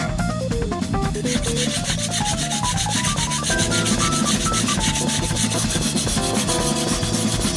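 A gyuto kitchen knife blade being rubbed back and forth on a whetstone, a steady scraping that starts about a second in; the blade is being ground thin. A melodic tune plays throughout.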